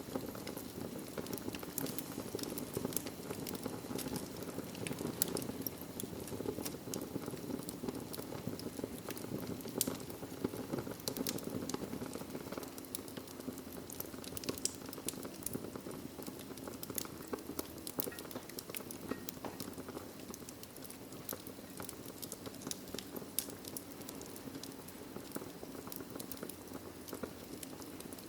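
Wood fire crackling in a fireplace: a steady low rush of flames with frequent small, sharp pops and snaps scattered irregularly throughout.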